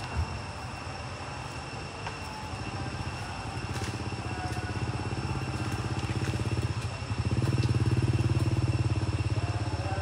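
A small engine running steadily with a fast, low throb that grows louder about seven seconds in. A steady high whine sits above it.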